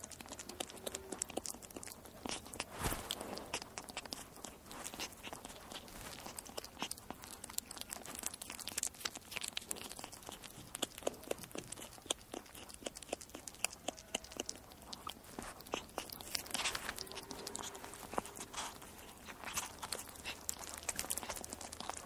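A weasel eating: dense, irregular crunching and chewing as it bites into its food.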